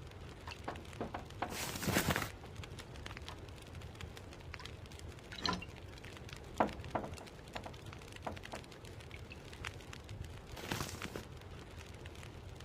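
Cooking sounds: scattered light clicks and crackles over a low steady hum, with two short rushes of noise, one about two seconds in and one near eleven seconds.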